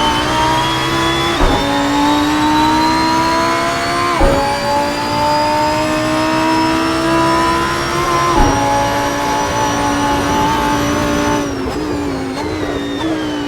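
Lamborghini Huracán Performante's 5.2-litre naturally aspirated V10 at full throttle, the revs climbing steadily through the gears with three quick upshifts, each marked by a sharp drop in pitch and a short crack. Near the end the revs fall off as the driver lifts, with a couple of brief rises as it downshifts.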